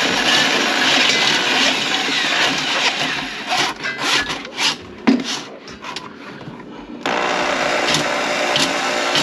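Electric drain auger running, its cable scraping and grinding in the greasy drain line. It stops about three seconds in, leaving a few clicks and knocks, and starts again abruptly about seven seconds in.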